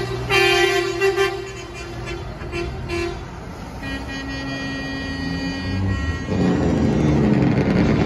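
Semi truck air horn blown in several short blasts, then a lower horn held steady for a couple of seconds. After that the low diesel rumble of the passing tractor-trailer grows louder.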